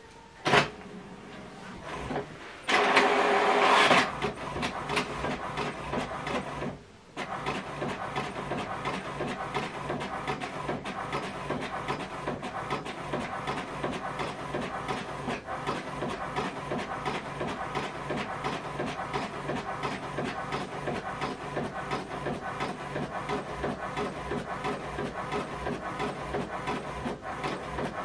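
HP DeskJet Plus 4120 inkjet printer printing a page: a click, a louder burst of about a second as it starts up, then after a brief pause a steady rapid clatter of printing mechanism as the page is fed through.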